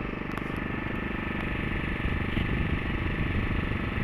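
Boat engine running steadily, getting slightly louder about two seconds in.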